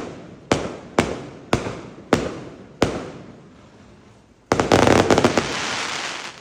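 Fireworks going off: five sharp bangs about half a second apart, each trailing away in echo, then, well past halfway, a dense burst of rapid cracks that turns into a steady crackling hiss before cutting off.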